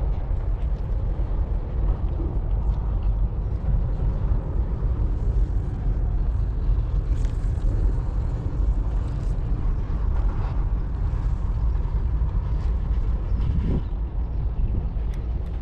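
Wind buffeting the camera microphone: a steady, rough low rumble throughout.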